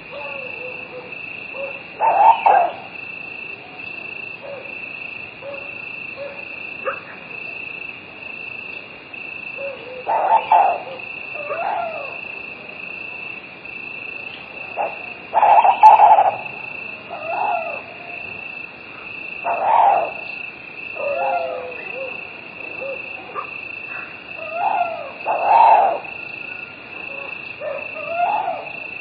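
Night ambience: insects trilling steadily in a high, unbroken drone. Over it come short hoot-like animal calls at irregular intervals, about a dozen in all, the loudest near the middle and toward the end.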